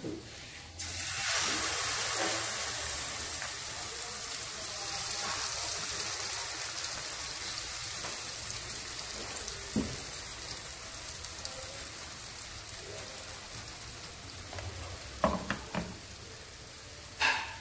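Fu yung hai egg-and-vegetable mixture hitting hot oil in a frying pan: it starts sizzling sharply about a second in, then keeps frying with a steady sizzle that slowly eases. A few short knocks come later.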